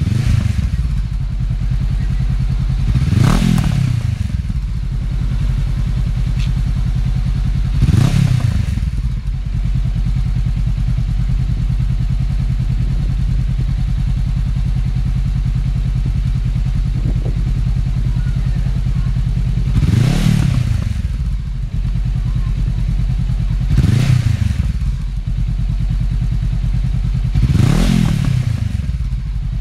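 Honda CB500X's 471cc parallel-twin engine idling through a Remus X aftermarket exhaust, with the throttle blipped five times, each rev rising briefly and dropping straight back to idle.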